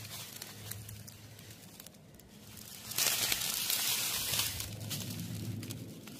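Dry grass and fallen leaves rustling and crackling under the filmer's feet and hands, with a louder burst of rustling a little past the middle that lasts about a second and a half and then tapers off. A low steady hum runs underneath.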